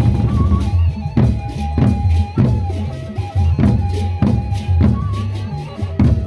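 Sasak gendang beleq ensemble playing: large barrel drums beaten with sticks in a steady beat of heavy strokes, a little under two a second, with a held melody line sounding above the drums.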